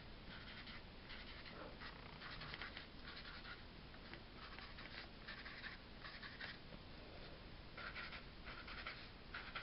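Felt-tip marker drawing on paper: faint, short scratchy strokes, one after another, as small lines and marks are drawn.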